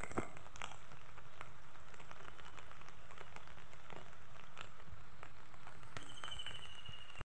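Steady rain falling, with scattered drops tapping close by. The sound cuts off abruptly near the end.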